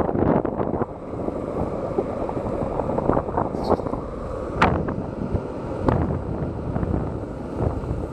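Longboard wheels rolling on asphalt with a steady rumble, and wind buffeting the microphone. A few sharp clicks stand out, two of them about four and a half and six seconds in.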